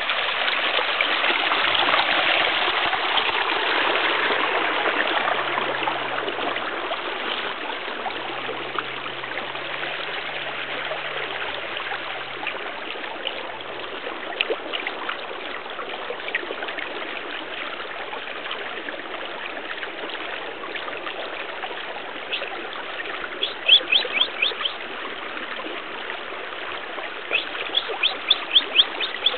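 Steady trickling and running water from a small ditch stream, louder in the first few seconds. Near the end come two quick runs of short, high chirps.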